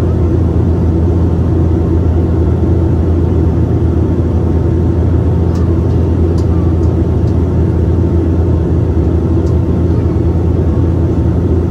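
Cabin drone of a Dash 8-400 on approach, from the Pratt & Whitney PW150A turboprops and their propellers: a steady, loud hum with a strong low tone and a few faint ticks midway.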